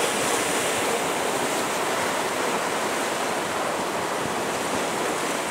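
Sea surf washing and breaking against the shoreline rocks: a steady, even rush of water, with some breeze on the microphone.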